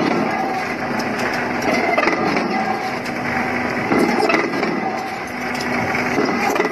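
Metal machining noise: a boring bar turning inside a large steel bore, a steady grinding din with a few sharp clinks.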